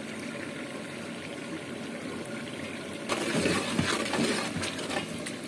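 Onion, tomato and chilli water boiling hard in a large aluminium pot, bubbling steadily. About three seconds in, a long metal ladle starts stirring through it and scraping the pot, louder and rougher.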